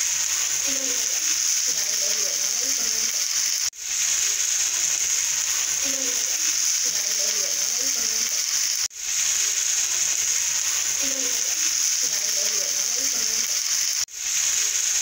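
A looped background sound bed: a steady high hiss with faint low pitched fragments under it. It breaks off and swells back in about every five seconds.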